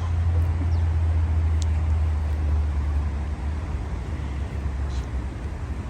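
A steady low rumble that eases slightly about halfway through, with a few faint clicks.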